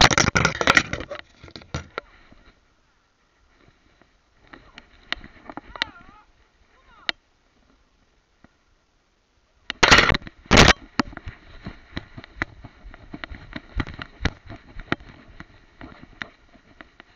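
Crackling rustles and clicks from a dog-worn camera's microphone as the dog pushes through long grass and undergrowth. The sound is loudest in two bursts, one at the start and one about ten seconds in.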